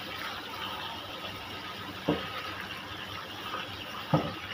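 Beef skin stir-frying in a wok, sizzling steadily. The spatula scrapes through the pieces and knocks against the pan twice, about two and four seconds in.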